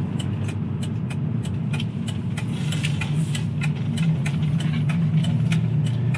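Car engine running steadily at low revs, heard from inside the cabin, with light clicks repeating through it.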